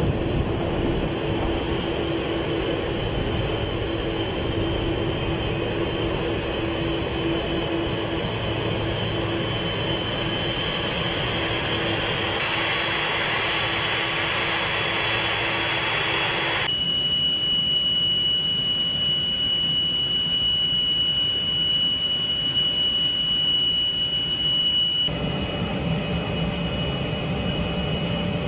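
Boeing 747 jet engines running with a loud rushing roar. About two-thirds of the way through it switches abruptly to a steady high-pitched engine whine, with another abrupt change near the end.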